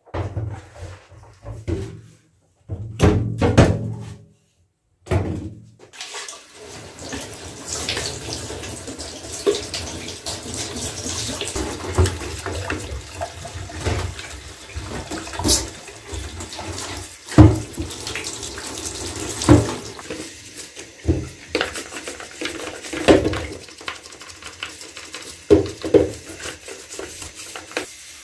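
Water splashing, then a tap running steadily into a bathtub from about six seconds in, while the plastic parts of a Kärcher handheld vacuum are rinsed and scrubbed, knocking now and then.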